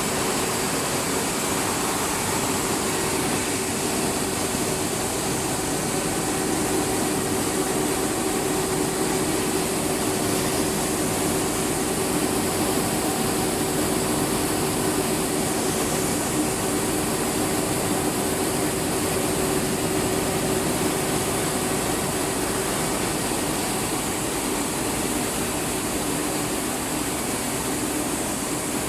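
Rice milling plant machinery running steadily: a dense, even mechanical noise with a faint steady hum.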